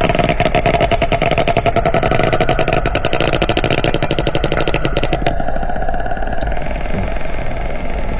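Sperm whale clicks, recorded underwater: a rapid, even train of clicks that runs together almost like an idling engine, duller about five seconds in.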